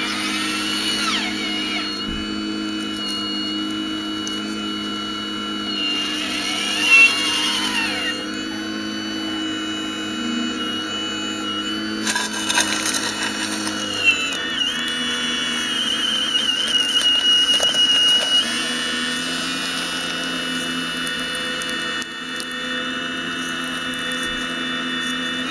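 Radio-controlled scale-model Hitachi excavator digging: its drive motors whine steadily, with whines that rise, fall and waver as the boom and bucket move. A few short clicks and knocks come through.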